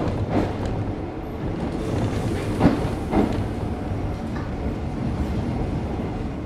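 Mizuma Railway 1000-series electric train running, heard from inside the car: a steady rumble with the wheels clacking over rail joints in pairs, loudest about three seconds in.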